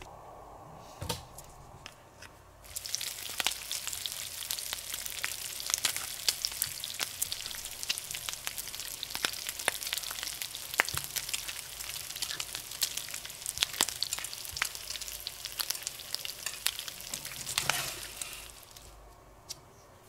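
Sizzle of food frying in a hot pan, dense crackling that starts suddenly about three seconds in and stops near the end; it is an added sound effect laid over the pretend frying of gummy candy pieces. Before it, a single light tap.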